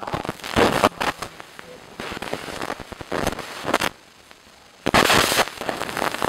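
Wooden spoon stirring and scraping thick strawberry-cherry jam in a cast iron pot, in several short noisy strokes with pauses between; the loudest stroke comes about five seconds in.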